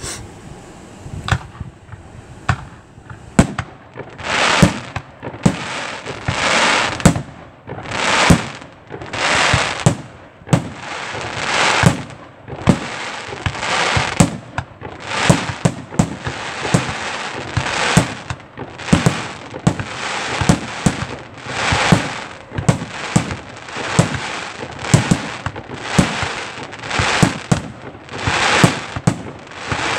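A 2-inch, 50-shot consumer firework cake firing in a steady run: sharp launch thumps about every three-quarters of a second, each followed by a shell bursting into a noisy spray lasting up to a second. The first few shots are fainter, and the bursts grow loud from about four seconds in.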